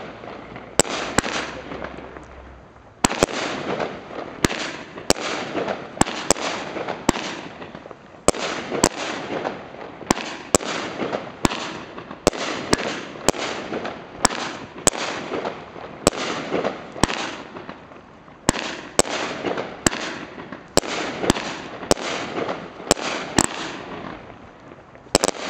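Cosmic Fireworks 'T-Rex Terror' barrage cake firing: a rapid run of sharp bangs from bursting shots, about one to two a second, each trailing into a hiss, with a brief lull about two and a half seconds in.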